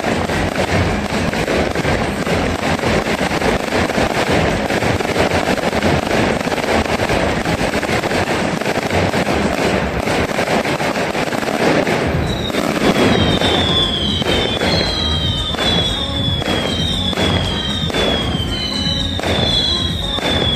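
Fireworks bursting overhead: continuous loud crackling and popping. A little past halfway a series of high falling whistles joins in, about one a second.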